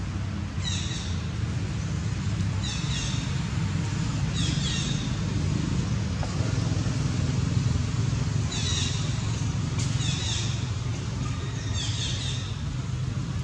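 Steady low engine rumble from motor traffic, with a bird repeatedly giving short, high, descending chirps every second or two, pausing in the middle.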